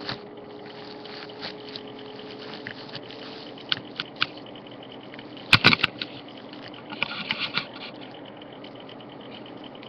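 Handling noise close to the microphone: scattered clicks and knocks, with a loud cluster about five and a half seconds in and another burst of small knocks around seven seconds, over a steady hiss with a faint hum in the first few seconds.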